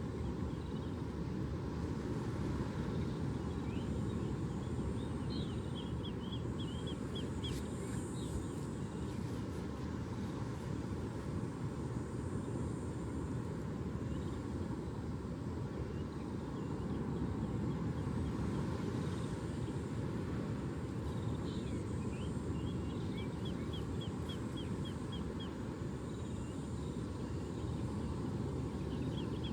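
Steady low rush of surf, with a bird's rapid trill of short high chirps heard twice, about five seconds in and again past twenty seconds.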